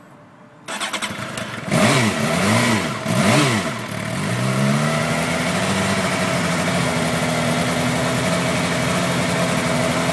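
2008 Suzuki GSX-R750's inline-four cranked on the electric starter, catching about a second later, revved up and down twice, then settling into a steady idle. The bike is hard to start when hot after a long ride.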